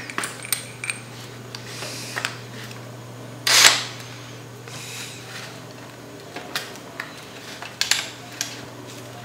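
Handling noise of a cordless drill and a small metal screwdriver bit holder: scattered light clicks and taps, with one brief louder scrape about three and a half seconds in. A steady low hum runs underneath; the drill's motor does not run.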